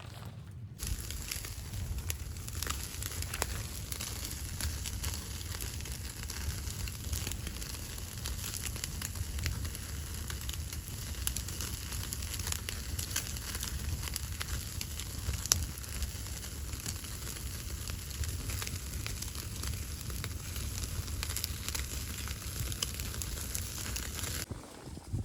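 Wood fire crackling steadily with many small sharp pops over a low rumble; it starts suddenly about a second in and cuts off just before the end.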